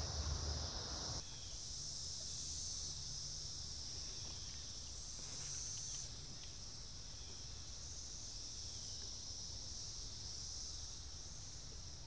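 Chorus of Brood X periodical cicadas, a steady high-pitched drone that swells slightly around the middle.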